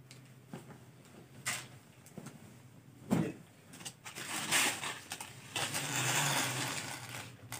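Cloth rustling as a folded embroidered suit piece is opened out and spread by hand. A few soft knocks against the counter come in the first three seconds, then a longer stretch of rustling from about four seconds in.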